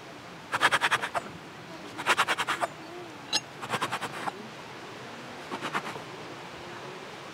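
Four short scratchy scraping strokes, each about half a second long of rapid fine rasping, spaced about one and a half seconds apart. A brief high chirp sounds between them, a little over three seconds in.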